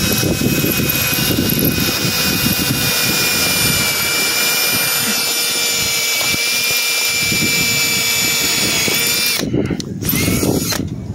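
Milwaukee M18 cordless drill boring into brick with a 3/16-inch carbide-tipped masonry bit: a steady, continuous motor whine with grinding noise, which stops shortly before the end.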